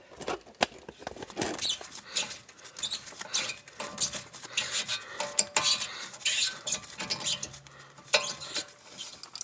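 Irregular metal clicks and clinks of a hand tool turning a 10 mm hex bit in a brake caliper's lower guide-pin bolt, working it loose.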